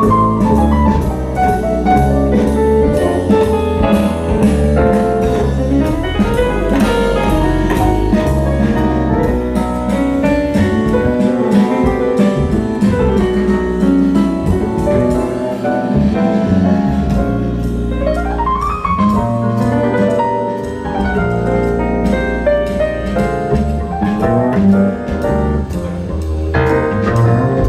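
Jazz music with a steady beat, playing across the whole stretch.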